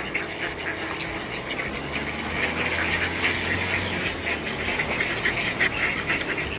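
A group of mallard ducks quacking and chattering, many short calls overlapping in a continuous stream.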